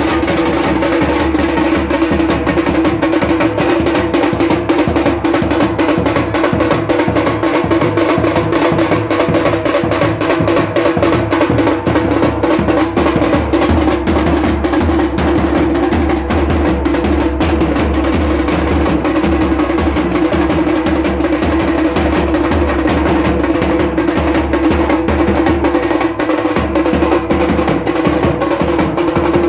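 A dhol-tasha drum group playing: several tashas, shallow kettle drums, struck with thin sticks in a fast, dense, unbroken beat that rings high over the deep, low beat of large dhol drums.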